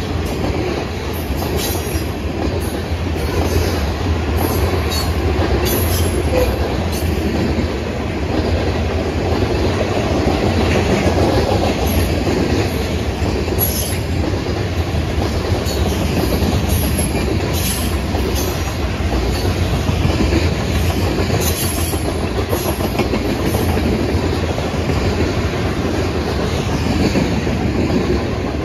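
A train's cars rolling steadily past with the clickety-clack of their wheels, mixed with frequent short, high squeals and clicks from the wheels on the rails.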